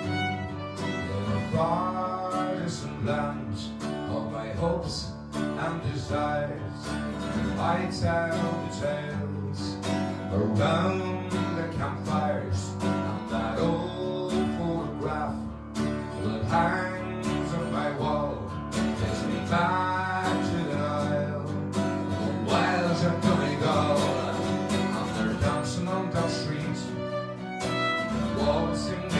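Guitar and fiddle playing an instrumental folk tune together.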